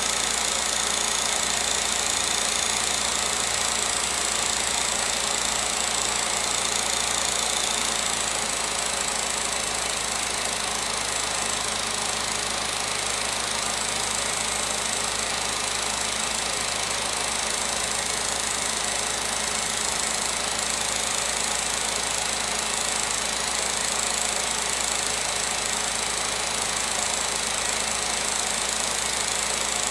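16mm film projector running steadily: an even mechanical whirr and clatter with hiss, unchanging throughout.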